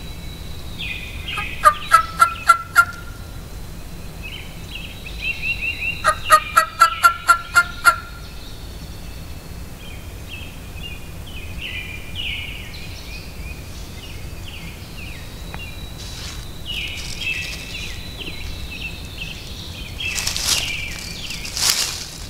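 Wild turkey gobbler gobbling twice, a few seconds apart, each gobble a fast rattling run of notes, the second longer. Small songbirds chirp throughout, and a few brief scuffing noises come near the end.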